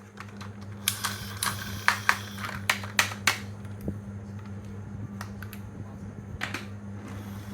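Marbles clicking and rattling along a marble run: a quick run of clicks in the first few seconds, then scattered single clicks, over a steady low hum.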